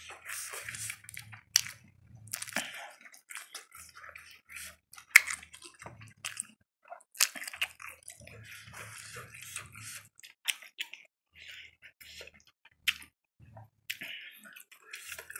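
A man's mouth reacting to chilli heat after eating very spicy instant noodles: repeated breathy hisses of air drawn in and blown out through the lips, with wet lip smacks and clicks.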